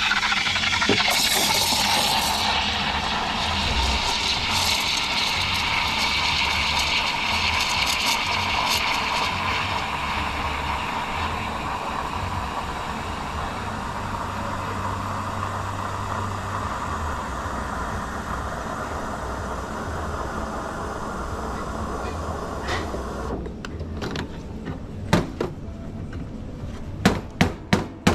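Espresso machine steam wand heating milk in a jug for an extra hot latte: a steady hiss that slowly quietens and cuts off about 23 seconds in. It is followed by several sharp knocks and clinks.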